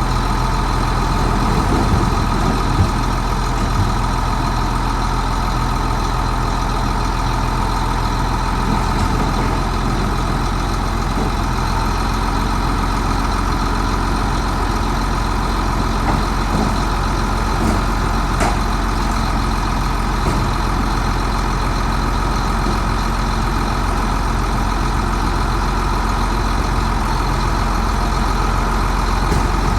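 Heavy diesel engine of earthmoving machinery running steadily, with a few faint knocks.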